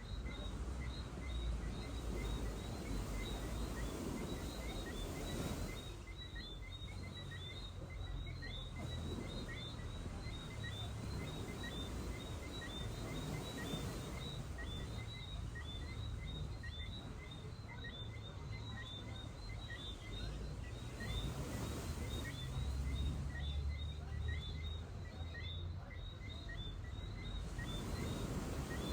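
Gentle surf washing onto a beach, swelling and easing every several seconds, under a dense, steady chorus of tiny high-pitched chirps.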